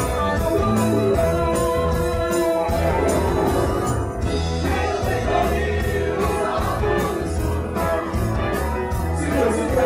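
Live rock band playing: electric guitar and a drum kit keeping a steady cymbal beat under a male lead vocal. The cymbals drop out for a moment about four seconds in.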